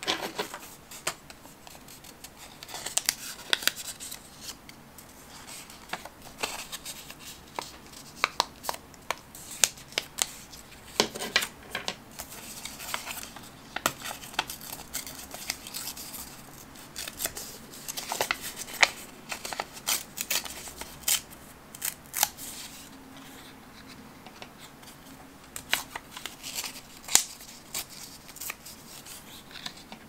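Close-miked paper sounds as a small photo print and paper strips are handled, folded, cut and torn: irregular crisp snips, crinkles and rustles.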